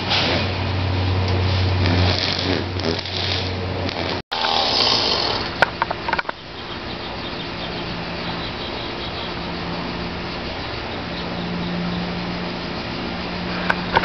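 An engine running steadily without revving, cut off abruptly about four seconds in. A quieter steady engine hum follows, with a few sharp clicks soon after the break.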